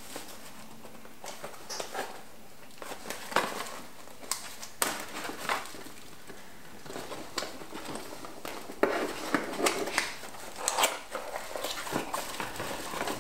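Cardboard box and its packing being rummaged through by hand: irregular rustling, scraping and small knocks, busier in the last few seconds.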